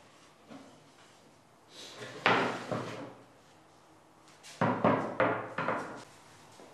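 Bentwood rings from a Thonet-style rocking chair knocking against each other and the table as they are handled and set down: a cluster of knocks about two seconds in, then about four more from about four and a half seconds in.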